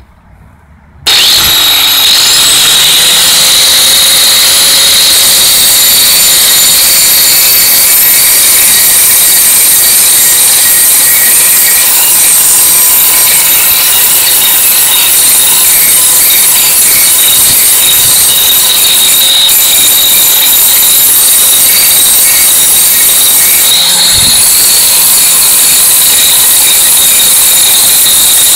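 Angle grinder switched on about a second in, its whine rising as the motor spins up, then grinding the cutting edge of a steel lawnmower blade with a loud, steady hiss and high whine, sharpening the blade.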